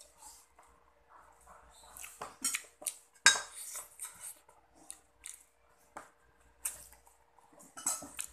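Scattered clinks and knocks of a plate and a metal spoon during a meal eaten by hand, mixed with mouth sounds of chewing. The sharpest knock comes about three seconds in.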